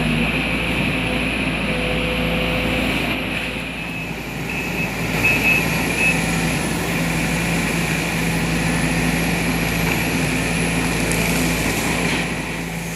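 Sumitomo SH210 hydraulic excavator running steadily, its diesel engine humming under a steady high whine, with a brief drop in level about four seconds in.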